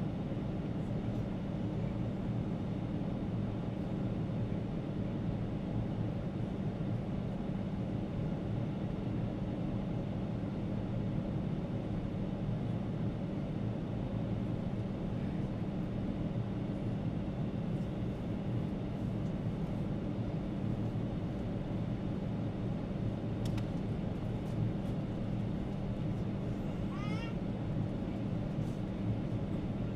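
Steady cabin noise inside a Boeing 777-300 airliner during its descent: an even drone of engines and rushing air with a low hum underneath. A faint click comes about three-quarters of the way through, and a brief faint high-pitched squeak comes soon after.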